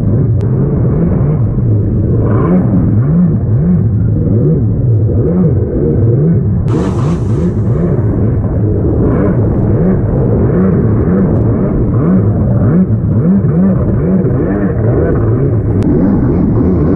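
Stand-up jet ski engine revving up and down over and over as it rides through surf, with a rush of wind and water over it. A brief burst of hissing noise about seven seconds in.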